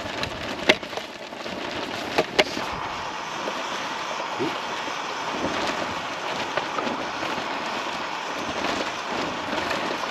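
Strong gusting wind and rain beating on a tent, a steady rushing noise, with three sharp knocks in the first two and a half seconds.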